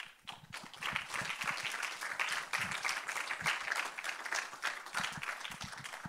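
Audience applauding, building up over the first second and dying down near the end.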